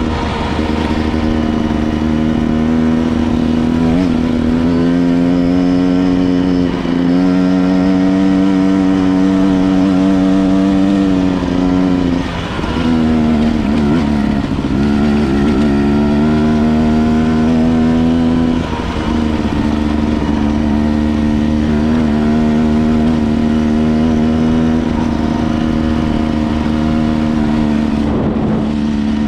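250 cc enduro dirt bike engine running under riding load. It is loud and steady, and its pitch drops and climbs again several times as the throttle and gears change.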